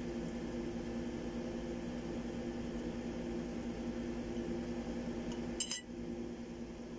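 A metal fork clinking against a ceramic plate in a short cluster of clinks about five and a half seconds in, over a steady background hum.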